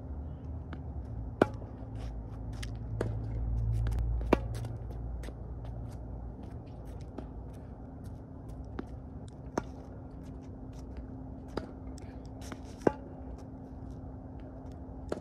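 Tennis balls struck by rackets and bouncing on a hard court during a rally: sharp pops at uneven intervals, the loudest about a second and a half, four seconds and thirteen seconds in, with fainter ones from the far end of the court. A low rumble swells and fades between about three and five seconds in.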